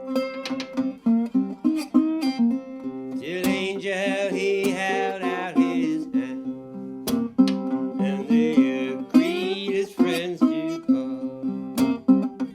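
National Resophonic tricone resonator guitar played blues-style with a bottleneck slide: quick picked notes over a steady low bass note, with two stretches of wavering, sliding notes.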